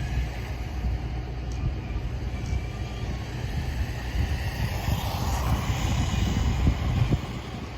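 Whine of a 1/16-scale brushless RC jeep's electric motor and drivetrain as it drives on pavement. The whine swells and fades as the car passes about five seconds in, over a steady low rumble.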